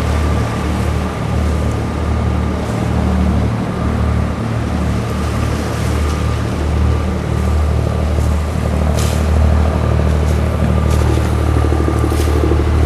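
Motorboat engine running steadily underway: a continuous low drone with a faint steady whine above it, and a few short rustles in the second half.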